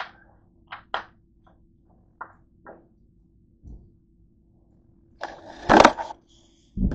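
Close handling noises: a few light clicks and knocks, a soft thump as a plastic 2-litre soda bottle is set on the counter, then a loud rubbing, scraping noise about five seconds in as the camera is picked up and moved, and a thump near the end.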